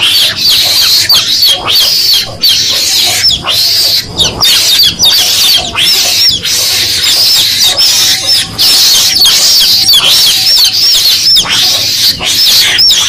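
Chicks peeping continuously, shrill high peeps several a second, played as a lure call to draw mongooses.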